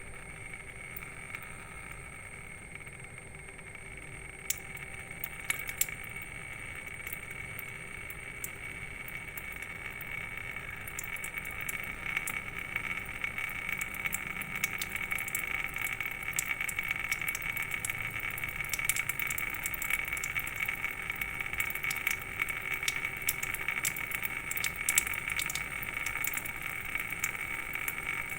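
Neti-pot salt water trickling and dripping out of a nostril, a patter of small splashes that grows louder after about ten seconds, over a steady faint high-pitched tone.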